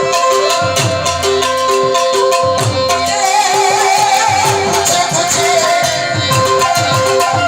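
Instrumental folk music: a fast hand-drum rhythm under steady held melody notes, with a wavering lead line about three seconds in.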